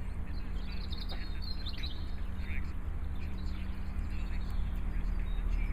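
Small songbirds chirping repeatedly, many short calls, over a steady low hum.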